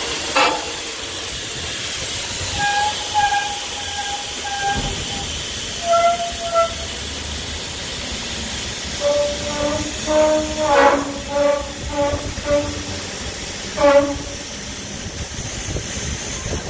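Steady hiss of air venting from the tank lift's pneumatic airbag as the lift is lowered, the tank settling back onto the center-mount chassis. Short horn-like tones sound on and off over the hiss, mostly in the second half.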